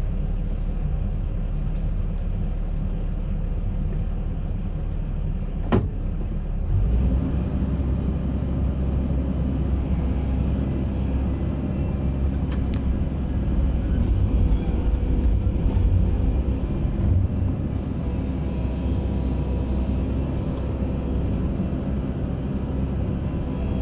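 Concrete mixer running with a steady low mechanical rumble. There is a sharp click about six seconds in, after which the rumble gets heavier and less even for a stretch before settling again.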